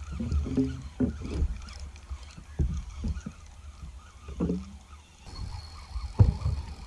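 Wind rumbling on a bow-mounted camera's microphone on a plastic kayak, with water slapping the hull and irregular knocks. Two short low pitched calls stand out, about half a second in and just past four seconds, and a sharp knock near the end is the loudest sound.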